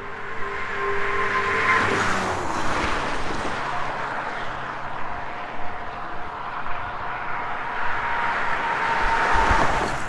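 Cars passing at highway speed on a two-lane road. The tyre noise swells and its tone drops in pitch as one goes by about two seconds in, and another swells past near the end.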